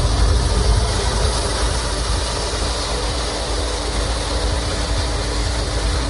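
Pet blow dryer running steadily: an even rush of blown air with a faint steady hum underneath.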